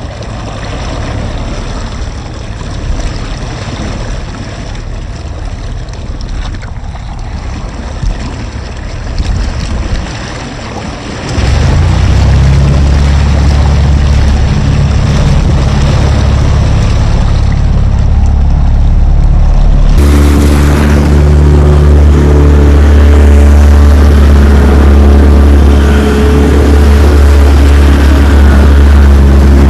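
Water rushing along the hull of a small motorboat under way, with wind. About eleven seconds in, the steady note of the boat's motor comes in suddenly and keeps running, turning fuller and louder after an abrupt change about twenty seconds in.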